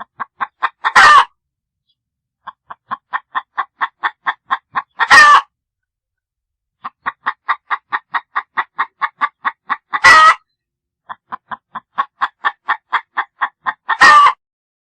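Chicken cackling: four times over, a run of short clucks, about three or four a second, builds into one loud drawn-out squawk. Each bout is followed by dead silence.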